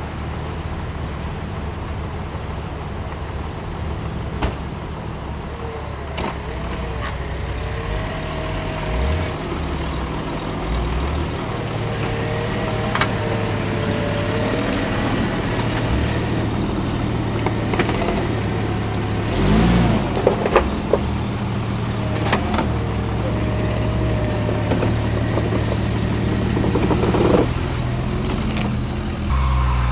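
An off-road 4x4's engine running at low speed, its pitch stepping up and down as the throttle changes. It gradually grows louder, with scattered sharp knocks and clicks.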